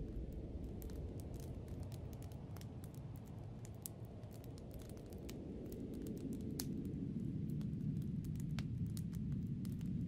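Snowstorm wind, a low rushing noise that eases a few seconds in and then builds again, with many small sharp crackles scattered over it.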